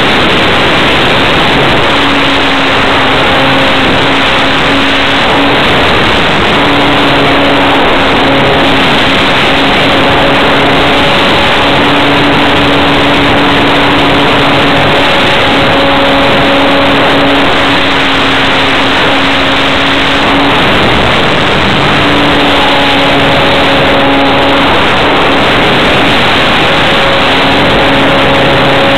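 Electric motor and propeller of a radio-controlled model plane heard from an onboard camera, buried in heavy wind rush from the slipstream. A low steady hum drops out and comes back every few seconds.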